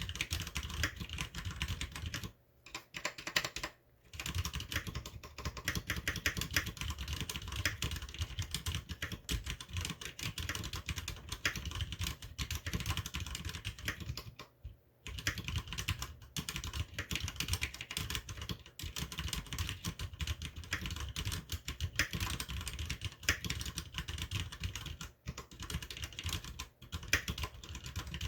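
Cherry MX Board 3.0S RGB mechanical keyboard with tactile Cherry MX Brown switches, typed on fast and continuously, with a few brief pauses, the longest about halfway through.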